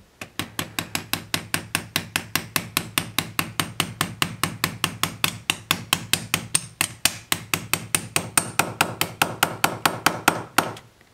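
Small hammer tapping rapidly and evenly on a steel AR-15 low-profile gas block, about five light strikes a second, seating the gas tube in the block. The tapping stops shortly before the end.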